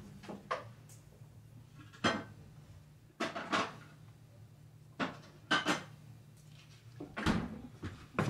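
Kitchen clatter: dishes and pots being handled at a counter, a string of separate knocks and clinks about a second apart.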